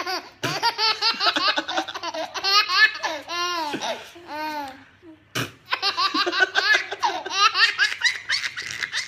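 A baby laughing hard in repeated high-pitched bursts of giggles, with a short lull near the middle broken by a single sharp click before the laughter starts again.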